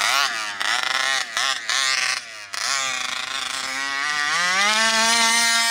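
RCMAX 80cc two-stroke gas engine of a 1/5-scale RC monster truck, on its first tank of break-in fuel, revving in quick throttle blips. It drops off briefly about two seconds in, then climbs and holds a steady high run as the truck accelerates.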